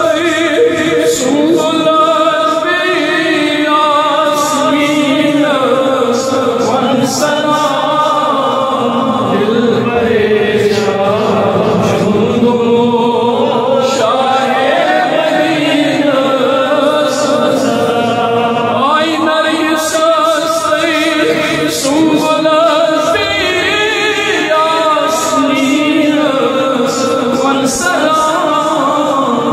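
A naat, an Islamic devotional poem, sung continuously with choir-like backing voices.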